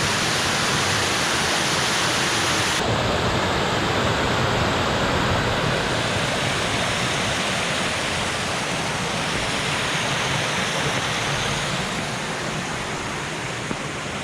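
Waterfall rushing: a steady, loud wash of falling water. About three seconds in, the highest hiss drops away abruptly while the rush goes on.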